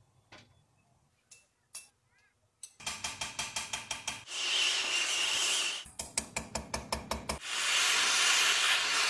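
Rapid, evenly spaced metal taps, several a second, as a tool is struck on thin sheet metal, twice giving way to the steady hiss of a gas torch flame.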